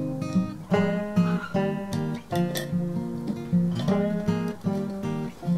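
Background music: an acoustic guitar playing plucked and strummed notes at a steady pace.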